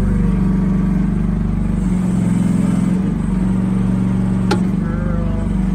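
Briggs & Stratton engine of a mini excavator running steadily while the arm and bucket are worked, with a sharp click about four and a half seconds in.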